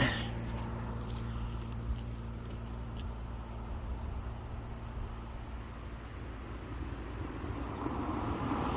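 Quiet, steady background noise: a continuous high-pitched whine over a low hum, with no events standing out.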